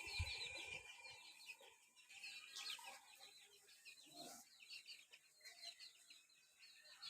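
Chicks peeping faintly: many short, high chirps overlapping, with an occasional soft low sound among them.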